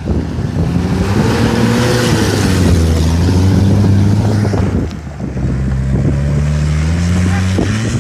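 Mitsubishi Pajero 4x4 engine labouring up a steep rocky slope, its pitch rising and falling with the throttle, with wind rushing on the microphone. After a break about five seconds in, an engine runs on steadily at a higher pitch, with occasional sharp clicks of stones.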